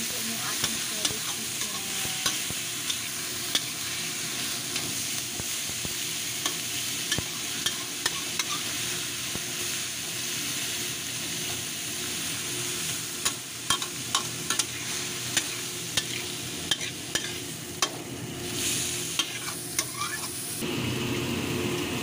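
Shredded chicken and onions sizzling in hot oil in a wok, stirred with a spatula that scrapes and clicks against the pan. The clicks come thicker in the second half.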